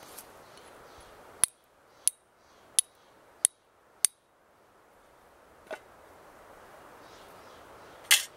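Flint and steel: a homemade steel fork used as a striker, struck against flint to throw sparks. Five sharp, ringing strikes in an even rhythm about two-thirds of a second apart, then two more after a pause, the last near the end the loudest.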